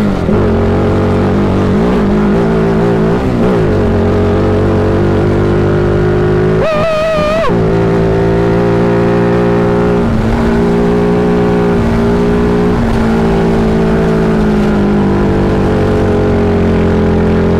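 Single-cylinder engine of an off-road crosskart running hard under load at fairly steady revs. About seven seconds in, the revs jump higher for roughly a second, then drop back.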